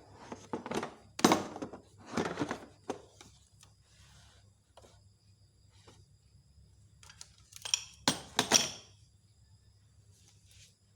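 Hard items of a power drill and its accessories being handled and set down: a quick run of knocks and clatters, a pause, then a few more knocks near the end.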